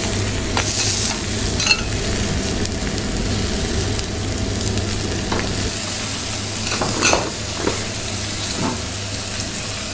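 Split lobster sizzling on a hot teppanyaki flat-top griddle, a steady hiss with a few sharp clicks.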